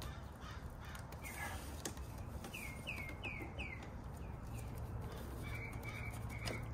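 Small birds chirping in the background: a quick run of four short falling chirps in the middle, then a few flatter chirps near the end. A faint metallic click comes as pliers work at the crimp of a battery terminal.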